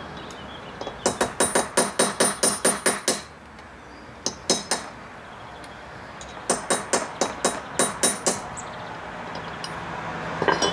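A hammer rapidly tapping a steel punch held against the seized power valve rack retaining screw of a Kawasaki KDX200SR, trying to knock the screw round. The taps come in two quick runs of about six a second, each lasting about two seconds, with a couple of single taps between; each tap gives a sharp metallic ring.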